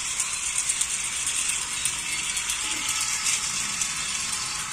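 Several battery-powered toy trains running at once on plastic track, their small geared motors and wheels making a steady clicking rattle.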